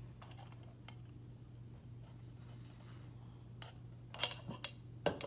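A few light clicks and taps of objects being handled, with several sharp ones close together near the end, over a steady low hum.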